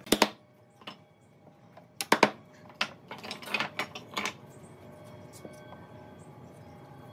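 Wooden mallet knocking wooden slats down into mortises in a wooden rail: a pair of sharp knocks at the start, another pair about two seconds in, then a quicker run of lighter knocks over the next two seconds.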